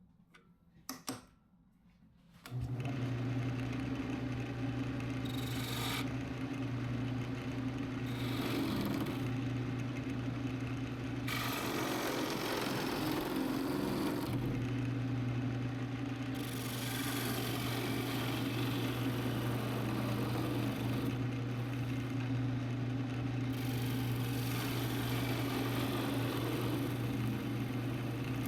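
A power tool switches on about two and a half seconds in and runs steadily, its motor hum overlaid by a rough cutting or rubbing noise that swells and fades as it works wood.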